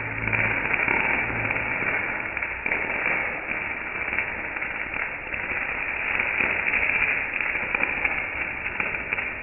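Electric arc welding: the arc crackles and sputters steadily as it burns on steel, sounding muffled, with no high hiss. It dies away right at the end as the arc is broken.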